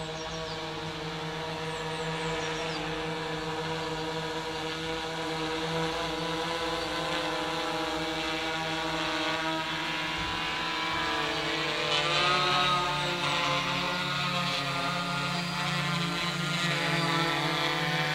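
S500 quadcopter's electric motors and propellers buzzing with a steady pitched hum that wavers slightly, growing louder as the drone comes closer and lower.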